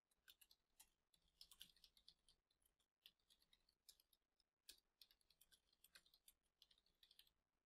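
Faint typing on a computer keyboard: irregular, scattered keystrokes.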